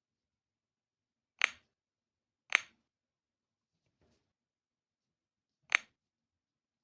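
Three short, sharp clicks, about a second apart and then three seconds apart, with a much fainter click between the second and third.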